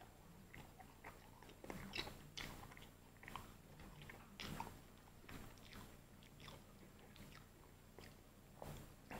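A person biting into and chewing fried chicken: faint, irregular crisp crunches and mouth clicks, spaced unevenly with short quiet gaps between them.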